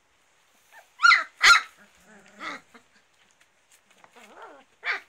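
Young rough collie puppies yipping at play: two loud, sharp high yips about a second in, softer lower calls in between, and another sharp yip near the end.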